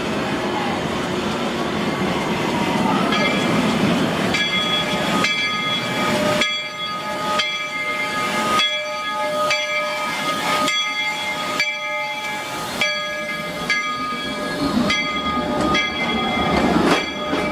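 1881 Baldwin narrow-gauge steam locomotive No. 340 rolling slowly past with its bell ringing about once a second, over the steady hiss and rumble of the engine and its coaches.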